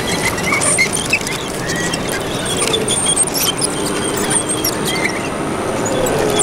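Model Komatsu D65PX bulldozer crawling over dirt, its metal tracks squeaking and clattering in many short chirps over a steady background din.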